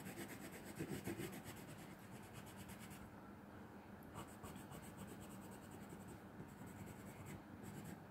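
Watercolour pencil scribbling on textured watercolour paper in quick, faint back-and-forth strokes, with a short pause about three seconds in.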